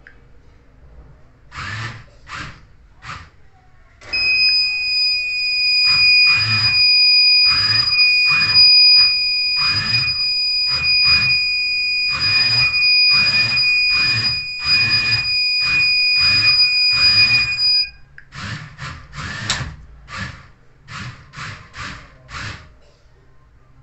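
Electronic buzzer horn of an Arduino Bluetooth toy car sounding one steady, loud, high-pitched beep, starting about four seconds in and cutting off about fourteen seconds later. Throughout, a regular pulsing sound repeats about three times every two seconds.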